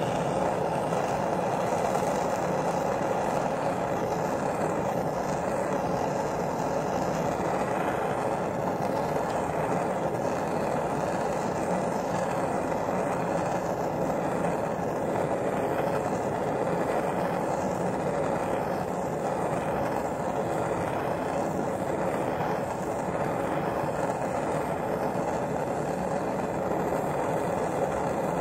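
Gas blowtorch flame burning steadily with an even roar, played onto a copper cone to melt out the lead former beneath it.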